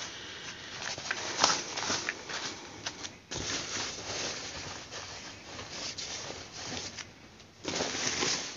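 Rustling and crinkling of a Gore-Tex Paclite jacket's shell fabric as hands press, smooth and bunch it up, with uneven scrapes and small crackles; it grows louder near the end as the fabric is gathered.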